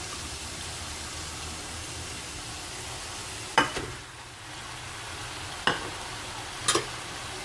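Nasi goreng paste, beef and shrimp sizzling in a pan as the rice goes in and is stirred, a steady frying hiss. A utensil knocks sharply against the pan three times in the second half.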